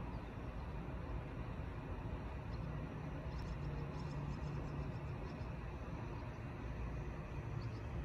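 Steady low outdoor rumble, with a few faint, high bird chirps about three to four and a half seconds in and again near the end.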